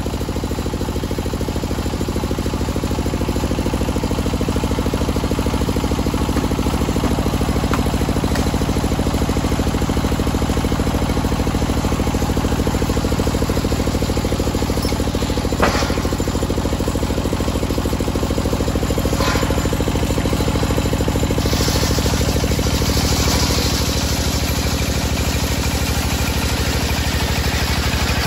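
Engine-driven table circular saw ripping a teak log: the engine runs steadily under the blade's load, with a single short knock about halfway through and more hiss from the cut near the end.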